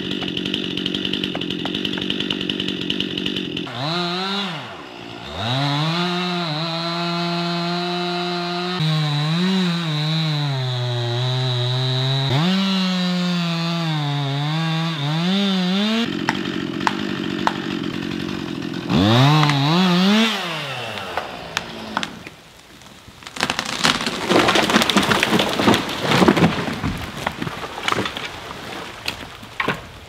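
Chainsaw cutting through a large dead ash tree, its engine note sagging and rising again as the bar works through the trunk, then dropping away. The tree then comes down with several seconds of cracking and crashing wood and breaking branches.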